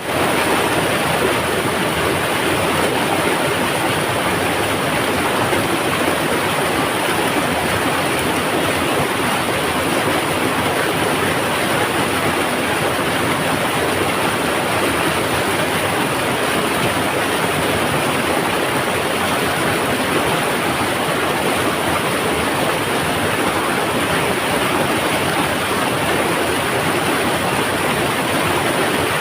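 Mountain river water rushing in a steady, unbroken rumble.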